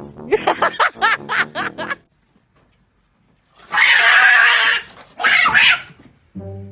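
An animal, likely a cat, calling in quick cries that rise and fall, then after a pause two loud hissing bursts.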